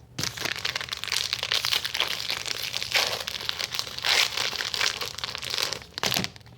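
Foil wrapper of a baseball trading-card pack crinkling and crumpling as it is opened and handled. One short crinkle follows after a brief pause near the end.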